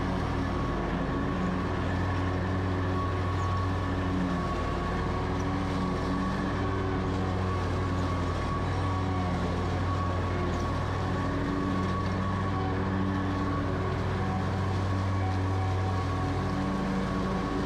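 Lawn mower engine running steadily at working speed with a high steady whine over it, its low note swelling and easing a little every few seconds as the load changes while mowing tall, overgrown grass.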